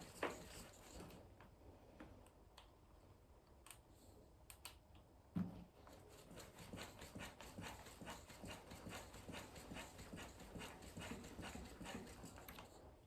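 Knocking from a RockShox Deluxe Ultimate rear shock on a Canyon Lux full-suspension bike: a knock at the start, one heavier low thump about five seconds in, then a run of light, quick clicks.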